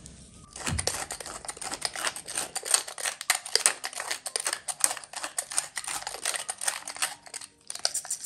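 Wooden pepper mill grinding black pepper: a rapid, gritty crackle of clicks as the mill is twisted. It starts about half a second in and stops just before the end.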